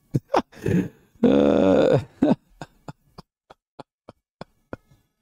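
Man laughing: a few short bursts, a longer voiced laugh, then a string of quiet breathy pulses that fade out.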